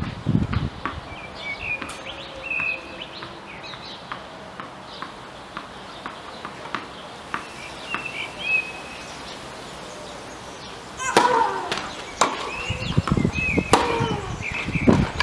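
A tennis ball being bounced and struck with rackets: scattered sharp knocks, then a busier run of louder hits from about eleven seconds in as a rally gets going. Small birds chirp throughout.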